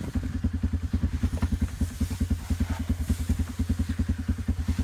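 Engine idling steadily with an even low putter of about ten beats a second.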